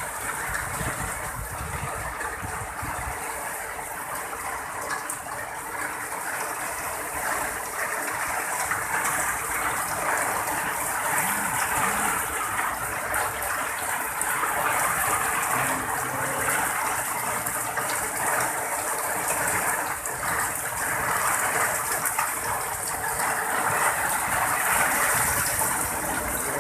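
Heavy rain pouring down in strong wind: a steady rushing downpour that grows somewhat louder over the course.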